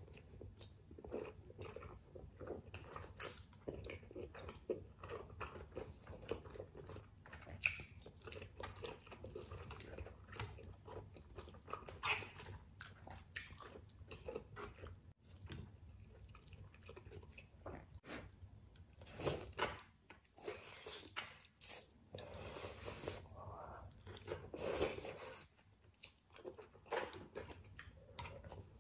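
A person eating spicy ramen with squid up close: chewing and slurping of noodles, with many short clicks from the chopsticks and food. A run of louder, longer eating noises comes about two-thirds of the way through.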